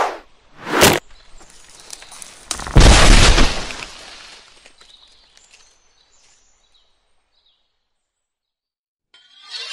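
Sound effects of an arrow felling a tree: two quick whooshes, then, about three seconds in, a loud crash with a deep boom that dies away over a second or so. A brief bright shimmer comes near the end.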